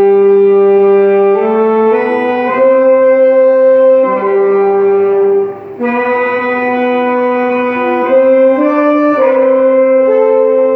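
Big band horn section of saxophones, trombones and trumpets playing long held chords that change every second or two, with a short break about five and a half seconds in before the chords come back.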